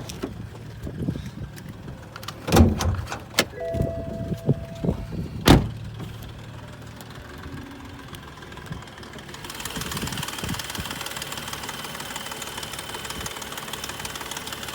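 BMW M235i's turbocharged straight-six idling with a continual ticking. A few sharp clunks come in the first half (door and hood release). From about two-thirds of the way in, the ticking sounds close up: fast, even and loud over the engine hum, which the owner finds far louder than on other BMWs.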